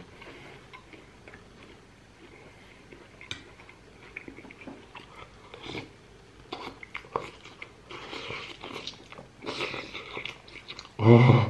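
Eating sounds: a man sipping and slurping hot bean soup from a metal spoon, with chewing and occasional sharp clicks of the spoon. The hissy slurps come in short bursts, several in the second half.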